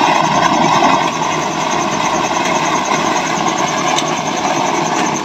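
Homemade used-oil burner stove with a small electric blower fan, burning at full flame: a loud, steady rush of fire and forced air.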